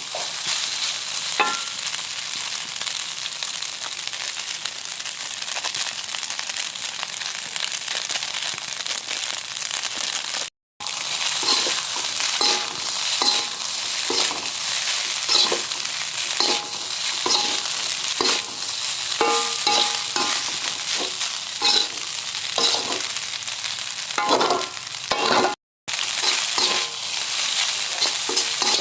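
Fried rice sizzling in a pan while a spatula stirs and scrapes it, with frequent short clinks of the spatula against the pan. The sound cuts out briefly twice.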